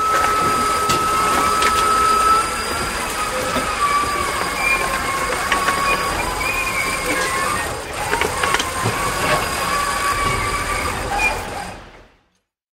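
Tow truck hauling away a car: a wavering high whine with scattered clicks over steady mechanical rumble, fading out near the end.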